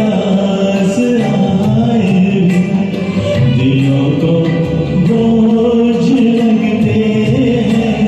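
Karaoke performance of a Hindi film duet: the backing track plays with a sung melody line over it.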